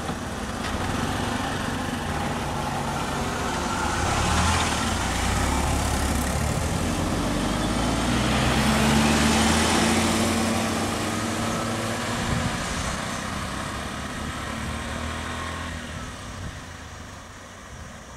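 Road vehicles' engines running at low speed, with louder swells as vehicles pass close about four and nine seconds in, then fading near the end.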